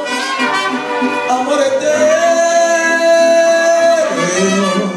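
Live mariachi band of violins, trumpets and guitars playing a slow ballad behind a male singer on a microphone. One long note is held through the middle.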